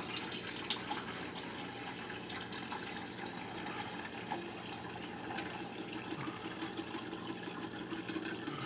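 Liquid pouring and trickling steadily while mashed brewing grains are sparged, with a few small ticks over it.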